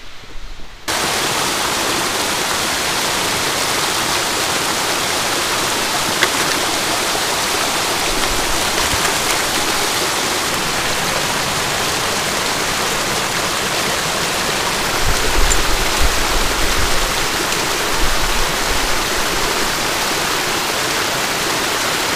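Small rocky mountain stream rushing over stones, a loud, steady roar of water that starts abruptly about a second in. A few low bumps come partway through.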